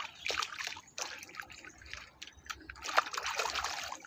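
Water splashing and sloshing as a hand scrubs a small toy car under the surface, in irregular bursts, the loudest a little under three seconds in.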